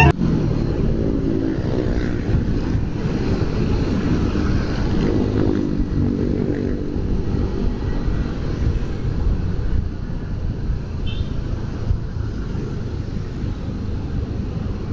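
Motorcycle engine running under way with wind and road noise, its note rising and falling a few times as the bike speeds up and slows in traffic.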